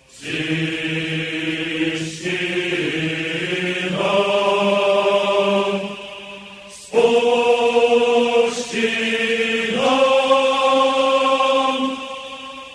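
Slow chanted vocal music: long held notes that change pitch every couple of seconds.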